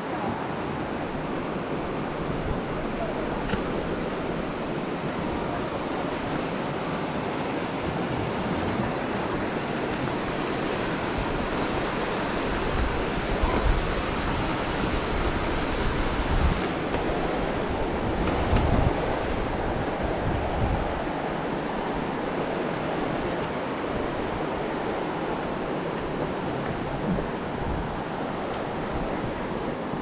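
Steady rushing of water from a stream or waterfall below a forest suspension bridge. Wind rumbles on the microphone, most strongly partway through.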